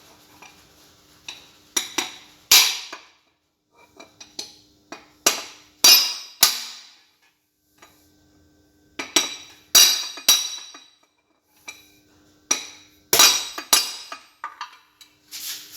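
Hammer driving a punch against the mainshaft assembly of a Massey Ferguson 135 six-speed gearbox. It gives a series of sharp metal taps in small groups of two to five, and each blow leaves a short metallic ring in the casing.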